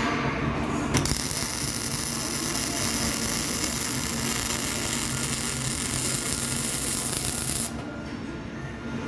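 Electric arc welding: the arc strikes with a click about a second in, runs with a steady hissing crackle while a bead is laid, and breaks off near the end. A steady low hum runs underneath.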